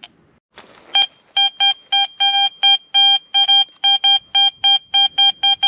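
Metal detector beeping: a single high beep repeated about four times a second, a little faster near the end, as it sounds off over a buried metal target.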